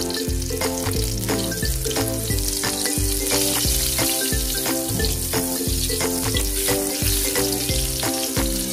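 Eggplant omelette frying in hot oil in a wok, a steady sizzle, under background music with a steady beat.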